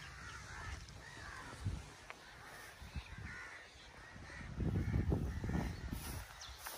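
Crows cawing a few times in the background. About two-thirds of the way in there are louder low thuds and rumble on the microphone.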